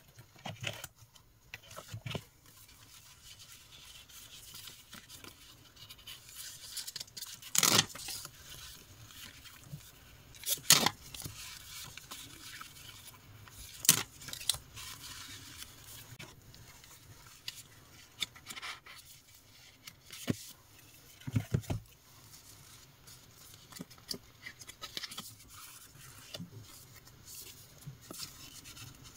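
Paper and stickers being handled on a desk: irregular scraping and rubbing, with scattered sharper taps and clicks, several of them louder than the rest.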